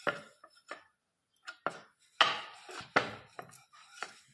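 Wooden rolling pin knocking and clattering against a metal rolling board as dough is rolled out, in about eight irregular sharp knocks with short ringing tails.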